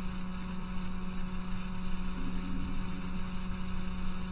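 Steady electrical mains hum at one low pitch, with an even hiss underneath, in the recording.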